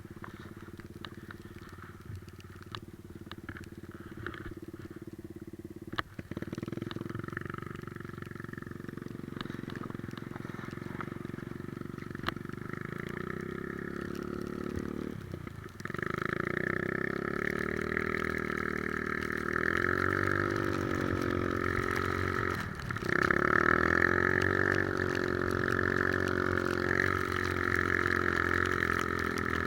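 Three-wheeler ATV engine running under way. The engine sound drops away briefly three times, about a fifth of the way in, about halfway and about three-quarters through, and each time comes back louder.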